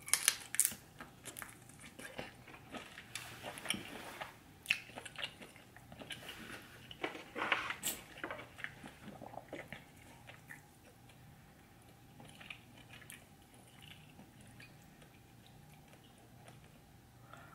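A person biting and chewing food close to the microphone: dense sharp clicks and wet crackling mouth sounds for the first ten seconds or so, then quieter, sparser chewing.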